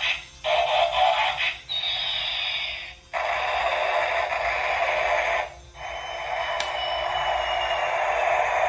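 A battery-operated transforming robot-airplane toy plays electronic sound effects and music through its small built-in speaker. The sound is tinny, with little bass, and comes in several bursts with short breaks. A falling whistle-like sweep comes about two seconds in, and a high held tone sinks slowly in the last burst.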